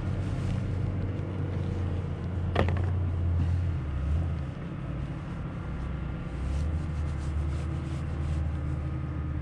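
Polaris RZR Turbo S side-by-side's engine idling, with one brief sharp sound about two and a half seconds in.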